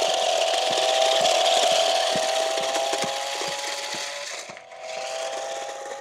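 Small electric motors and plastic gearboxes of a toy RC stunt car whining steadily as it drives over gravel, with tyre crunch and scattered ticks of small stones. The sound fades as the car moves away, dips briefly about four and a half seconds in, then picks up again.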